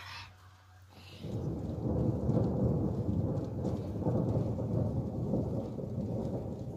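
Thunder: a low rumble that builds about a second in and rumbles on for several seconds.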